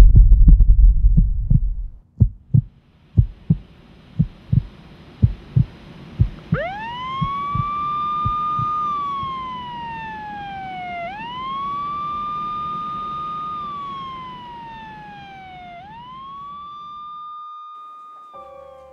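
A loud low rumble for about two seconds, then a heartbeat thumping in pairs. A few seconds in, an emergency-vehicle siren starts wailing: three slow cycles, each rising quickly, holding, then sliding down, before it fades out near the end.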